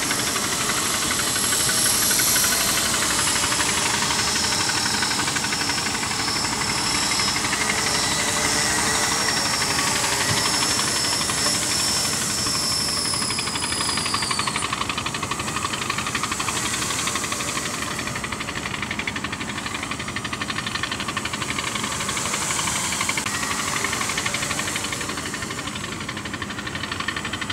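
T380 quadcopter's electric motors and propellers whining and buzzing steadily in flight. About halfway through the high whine drops in pitch and fades as the craft moves off.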